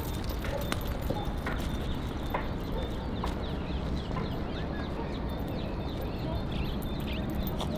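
Outdoor park ambience: a steady low rumble, with small birds chirping and a few sharp taps scattered through.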